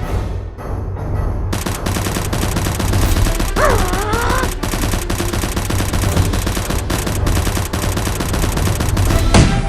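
Dense, rapid machine-gun-style gunfire that starts about a second and a half in and keeps up without a break, over the steady bass of background music.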